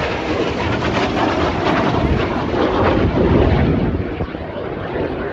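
Aircraft flying past, a loud, steady rushing engine noise that eases a little near the end.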